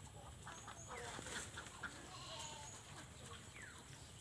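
Faint farmyard animal calls: goats bleating and chickens clucking, in short scattered calls.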